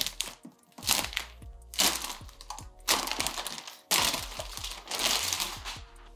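Clear plastic protective wrap being pulled off and crinkled, in about five loud rustling bursts roughly a second apart.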